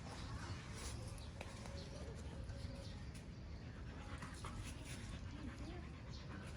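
A dog whimpering in a few faint, short whines, over a steady low rumble.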